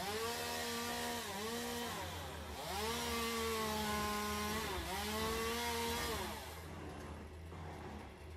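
Petrol chainsaw held at high revs while cutting through the yew, dipping briefly three times and then dropping back about six seconds in.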